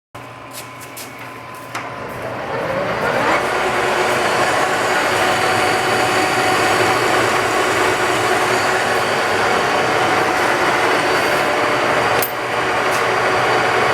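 Mighty Turn geared-head engine lathe starting up: a few clicks, then a rising whine as the machine comes up to speed. It then runs steadily with a loud gear drone. There is a sharp click near the end.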